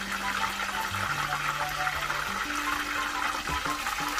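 Background music with slow, held bass notes, over a continuous steady hiss.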